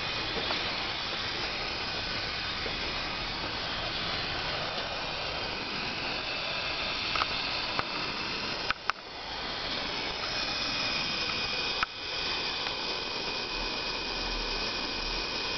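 A pair of Chennic 400 W DC-DC converters hissing steadily under the headlight load, a pronounced hiss with faint thin whistling tones in it. The owner takes this hiss to be par for the course for these converters.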